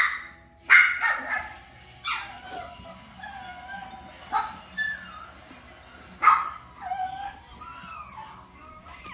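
A dog barking in short sharp bursts, a few at a time, with puppies' high whimpering and yipping calls sliding up and down between the barks.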